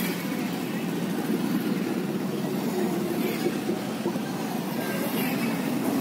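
Steady low rumble of running vehicles, with no single engine standing out.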